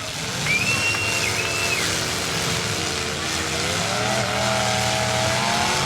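Demolition derby car engines running loud, with a brief high squeal about half a second in and an engine revving up about four seconds in.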